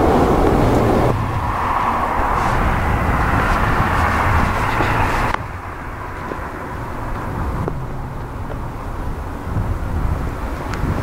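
Boeing 787-9 jet airliner engines heard as a steady rushing hum with a low rumble. The sound changes abruptly about a second in and again about five seconds in, then turns quieter with the airliner far off on final approach.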